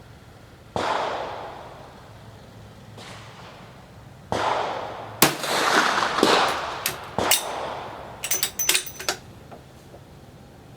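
Rifle shots at an outdoor range: sharp reports with long echoing tails about a second in and about four seconds in, then the loudest crack about five seconds in. Clattering and a quick run of sharp metallic clicks follow, typical of a rifle's action being worked.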